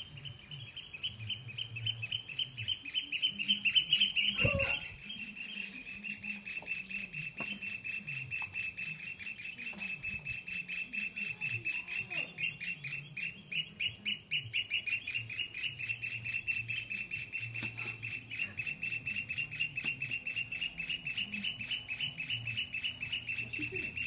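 Oystercatcher calling without a break, a fast run of shrill piping notes at about five a second, loudest a few seconds in: a real racket.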